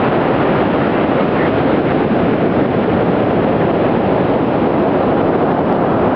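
Steady, loud rushing noise of beach surf and wind, even throughout with no breaks or swells.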